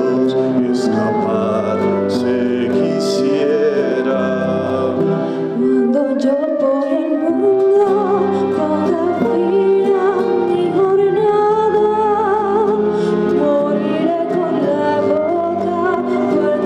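A woman singing a Costa Rican song, accompanied by a strummed acoustic guitar.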